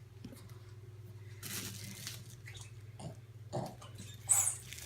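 A few short rustles and scuffs, as of a handbag being handled and moved, over a faint steady low hum.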